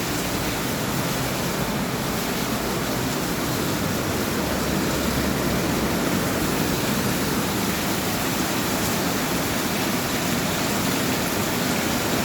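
Heavy rain pouring steadily, a dense even hiss that grows slightly louder over the first few seconds.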